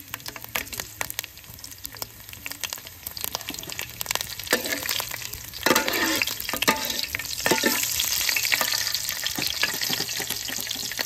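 Green chillies and whole spices sizzling and crackling in hot oil in a metal pot, stirred with a metal ladle. The sizzle grows louder about halfway through.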